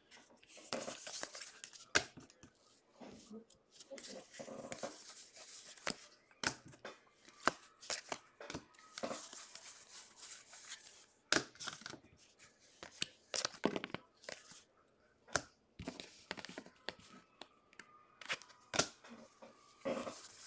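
2021 Bowman baseball cards being flicked and slid one by one off a hand-held stack, a run of irregular sharp clicks and short swishes of card stock rubbing on card stock.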